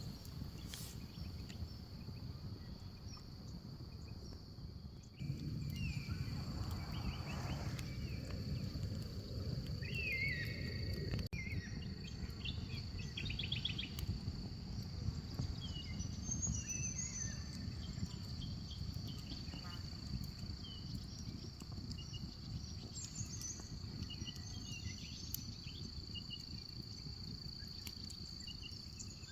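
Insects trilling in one steady high-pitched note, with scattered short bird chirps and a low rush of background noise that grows louder about five seconds in.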